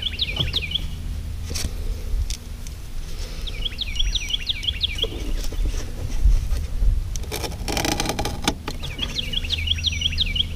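A songbird singing a short phrase of quick, high chirps, repeated three times about five seconds apart. Under it is a steady low rumble, with a few short knocks near the middle.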